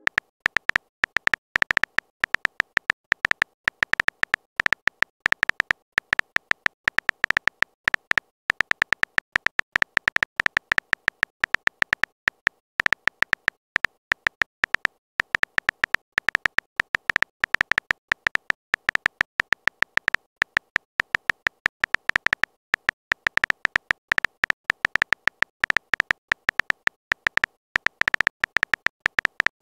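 The Texting Story app's keyboard typing sound effect: a fast, irregular stream of short electronic key clicks, each with a beep-like tone, as a long message is typed out.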